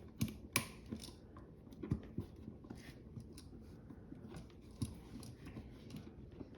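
Irregular small clicks and snips of hand tools working electrical wire onto a receptacle's screw terminals, the sharpest about half a second in.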